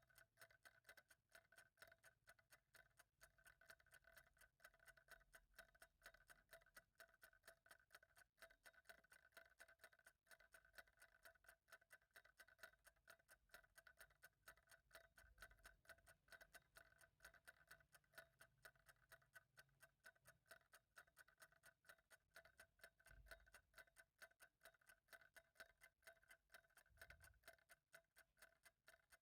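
Faint, even ticking of a clock, a quick steady run of ticks with no break.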